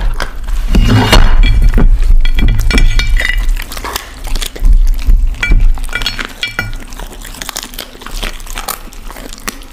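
Two huskies eating meat on the bone from a plate, recorded close up: crunching and chewing, with sharp clicks and clinks of teeth and food against the plate, heaviest in the first four seconds and again a little past the middle.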